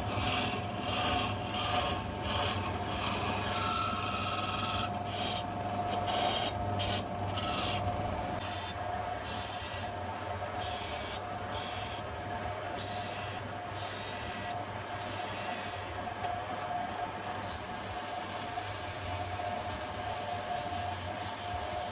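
Repeated abrasive rubbing strokes of a knife being hand-filed or sanded, running on over a steady hum. From about two-thirds of the way in, the strokes blur into continuous rubbing.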